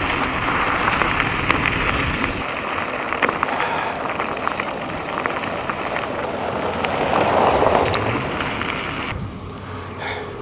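A bicycle's tyres crackle over a gravel road, with wind noise on the microphone. A car drives past, swelling and fading about seven to eight seconds in.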